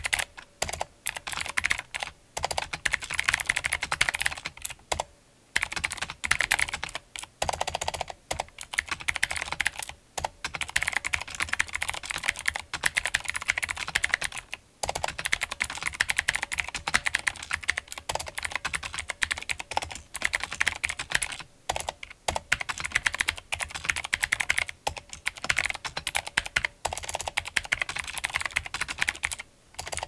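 Fast, steady typing on a Dolch PAC 60 keyboard fitted with vintage Cherry MX Blue clicky switches: a dense run of sharp key clicks with a few brief pauses between bursts.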